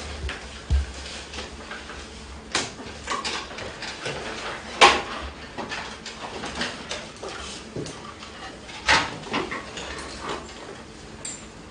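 Scattered small knocks, taps and rustles of a class writing calligraphy at their desks, with two louder knocks about five and nine seconds in, over a low steady hum.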